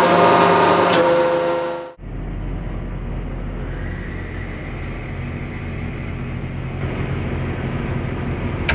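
Hydraulic press power unit running steadily as the ram bears down on a 5-ton bottle jack. About two seconds in the sound cuts abruptly to a duller, lower steady hum.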